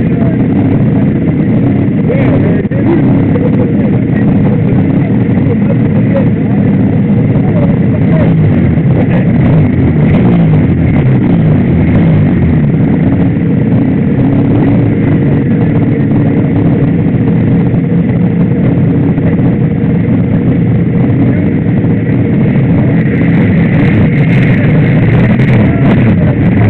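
Suzuki RGV250 two-stroke V-twin race bike engine idling steadily, heard close up from the bike itself, with other race motorcycles running around it.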